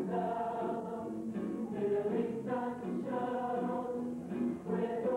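High school mixed choir of male and female voices singing in parts, with the sung notes changing every half second or so.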